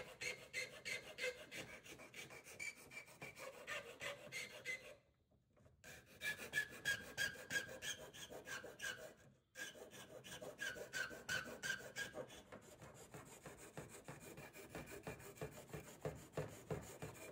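Small hand file rasping back and forth in a square clip hole in an aftermarket bumper's mounting tab, enlarging the undersized hole so the clip will fit. Quick, faint strokes, pausing briefly about five seconds in and again about nine and a half seconds in.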